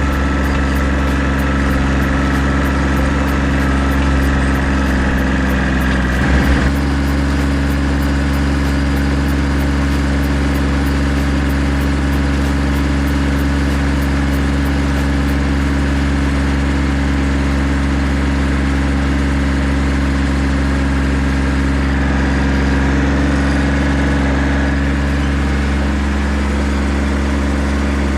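Farm tractor engine running at a steady speed while it drives a manure spreader that is being emptied. The engine note shifts briefly about six and a half seconds in.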